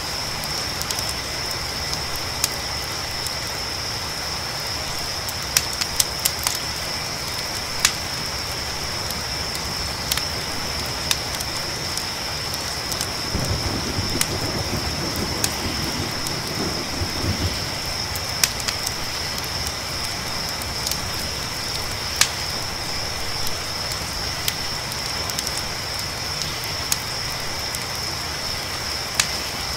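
Campfire crackling with scattered sharp pops, over a steady high chorus of crickets and a hiss of rain. A low rumble of distant thunder rises and fades from about 13 to 17 seconds in.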